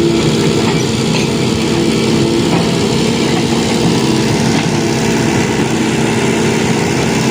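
Sumitomo hydraulic excavator's diesel engine running steadily while it dredges mud, with a constant engine hum.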